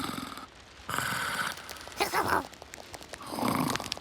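Cartoon sound effects of noisy, rasping breaths, repeated about once a second.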